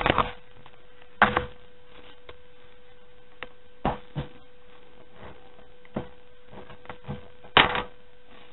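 Irregular clicks and knocks of a screwdriver and screws working against a computer case's metal chassis as a motherboard is screwed down, with a few louder knocks scattered through, over a faint steady hum.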